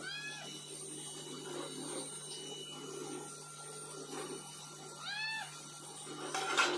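Calico cat meowing twice while begging for food: a short meow at the start and a longer one about five seconds in. A short sharp knock comes near the end.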